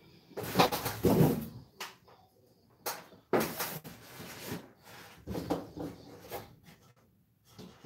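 Irregular rustling, bumps and knocks from handling things at a desk, with a couple of sharp clicks, as someone reaches down below the table.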